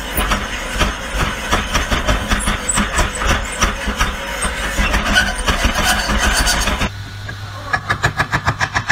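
Mortising machine cutting a slot into a wooden block: a loud, busy mechanical run with rapid clatter as the cutter chews through the wood. About seven seconds in the sound cuts to a lower steady hum with fast, even pulsing.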